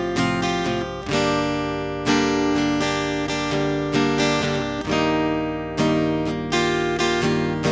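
Acoustic guitar played direct through a FET preamp pedal and a small mixer interface: chords picked and strummed about once a second, each left to ring into the next.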